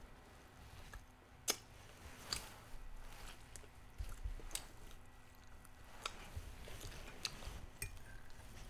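Close-up chewing and mouth sounds of someone eating fried chicken wings, with scattered sharp wet smacks, the loudest about one and a half seconds in, and a few soft low thumps in the second half.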